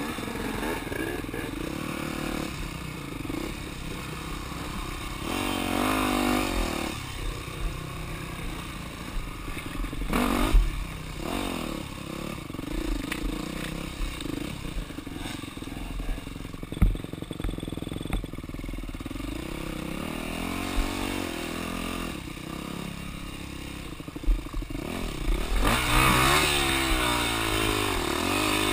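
Yamaha dirt bike engine being ridden on a rough woods trail, revving up and down with the throttle, with a few sharp knocks and rattles from the bike over the rough ground.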